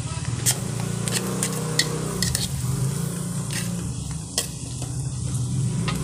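Chopped garlic and onion sizzling in hot oil in a wok, with a spatula scraping and clicking against the pan as it is stirred. A steady low hum runs underneath.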